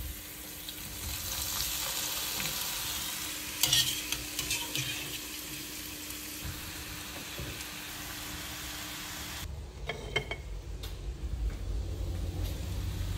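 Drained cappelletti frying in butter and sage in a pan, sizzling as they are stirred, with a few sharp knocks of a utensil about four seconds in. Near the end the sizzle drops out, leaving a few more knocks and a low hum.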